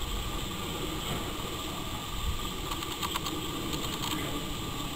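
Diesel shunting locomotive's engine running with a steady low rumble.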